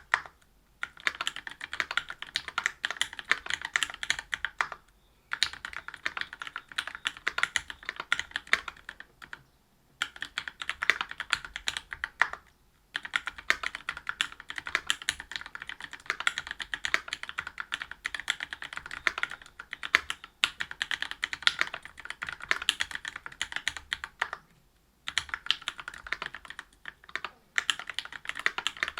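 Fast typing on a Whale 75 mechanical keyboard with stock Gateron Milky Red Pro linear switches (45 g), a brass plate and GMK keycaps. The keystrokes come in dense runs broken by several brief pauses.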